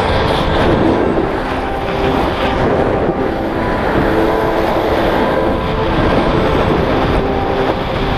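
Wind rushing over a pole-mounted action camera's microphone, mixed with a snowboard scraping across groomed snow during a run: a steady, loud rushing noise.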